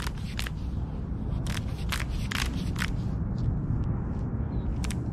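Click-type torque wrench being set to 25 newton meters, its handle turned with a series of sharp clicks, four of them in a quick run about a second and a half in. A steady low rumble runs underneath.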